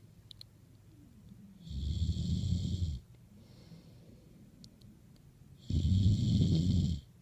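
Snoring: two loud, rasping snores about four seconds apart, each lasting just over a second, with a much softer breath between them.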